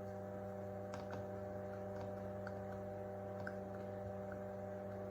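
Steady hum of a running bench fume extractor, with a few faint scattered crackles as solder wire and flux melt on a circuit-board terminal under the soldering iron tip.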